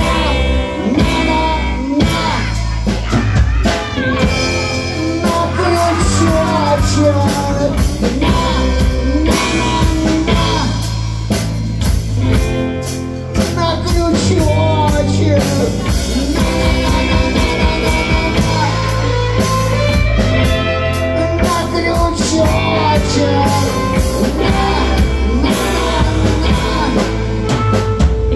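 Live rock band playing: electric guitar, harmonica and drum kit, with a tambourine.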